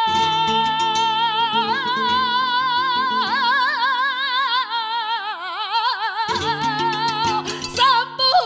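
Flamenco villancico: a female flamenco singer holds a long, ornamented sung line with wide vibrato over a flamenco guitar accompaniment. The guitar drops out for about a second just past the middle, then comes back.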